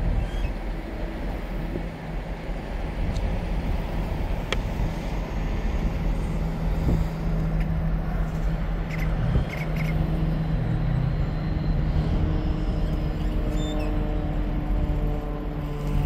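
Truck engine running steadily as a pickup pulls a loaded car-hauler trailer past.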